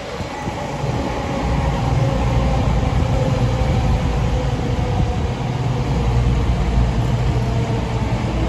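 A CrossCountry Voyager diesel multiple unit, two units coupled, running past: a loud, steady low rumble from its underfloor diesel engines and wheels on the rails, with a faint steady hum above it. The rumble builds over the first second or two as the train comes alongside.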